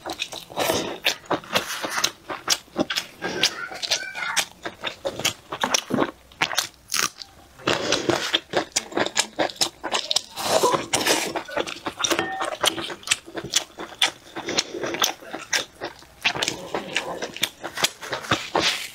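Close-miked eating sounds: a woman biting and chewing braised meat off the bone, a dense, irregular run of mouth clicks and smacks.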